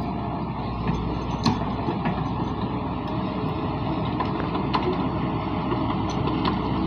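Komatsu hydraulic excavator's diesel engine running steadily, with scattered sharp clicks and knocks, the loudest about one and a half seconds in.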